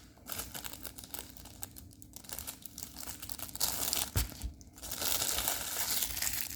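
Crinkly packaging of a diamond painting kit rustling as it is handled, in scattered crackles at first with a soft knock just after four seconds, then denser, steadier crinkling from about five seconds in.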